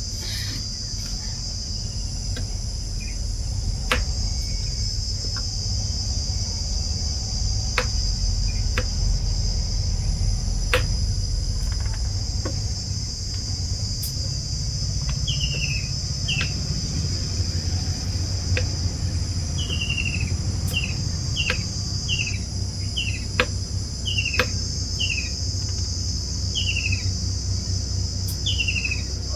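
Crickets or other insects shrilling steadily, over a low rumble. From about halfway in, a bird gives short falling chirps, repeated about once a second, and a few sharp clicks sound now and then.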